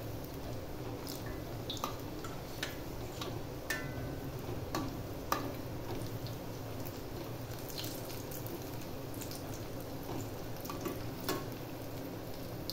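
Bread-and-potato rolls deep-frying in hot oil in a steel pan: a steady sizzle with scattered pops and crackles. A slotted spoon turning the rolls adds a few light clicks against the pan.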